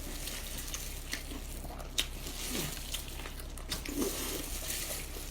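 Close-up eating sounds of seafood: chewing and biting, with sharp wet clicks and smacks every second or so.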